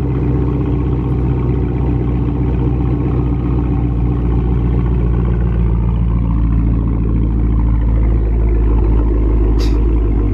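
A Chevrolet Camaro SS's 6.2-litre V8 idling steadily, heard close to its exhaust tip.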